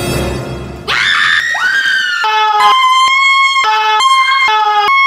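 Horror-film music drone, cut off about a second in by a woman's loud scream that rises sharply in pitch, then is held high and steady, broken up by several abrupt cuts.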